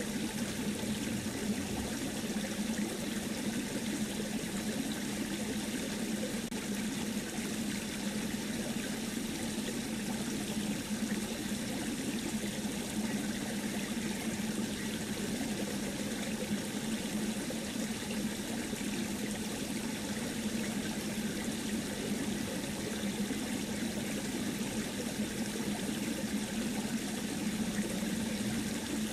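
Steady, even rushing noise like trickling running water, unchanging throughout.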